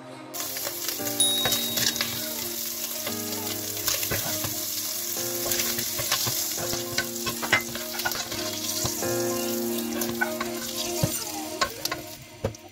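Bacon and its rendered fat sizzling hot in a pot, with a wooden spoon stirring and scraping the pot's bottom in scattered clicks. The sizzle dies down near the end.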